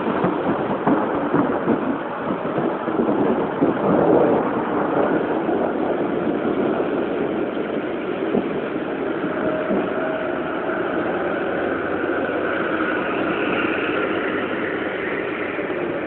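Rain falling: a steady, dense hiss with a crackling patter. From about nine seconds in, a faint humming tone runs under it.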